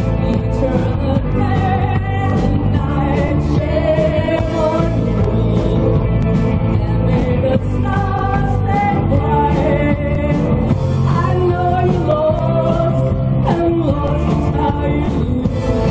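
Live rock band playing a song: electric guitars and a drum kit, loud and steady, with a melody line bending over the top.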